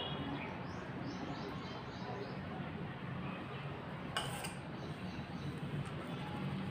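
A metal spoon clicks once against a dish about four seconds in, over steady background noise, with a few faint high chirps in the first couple of seconds.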